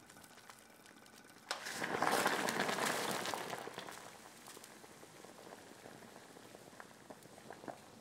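Water boiling hard in a stainless steel pot. The bubbling surges suddenly about a second and a half in and dies down over the next few seconds as a bundle of thin dry wheat noodles goes into the pot, leaving a few light ticks near the end.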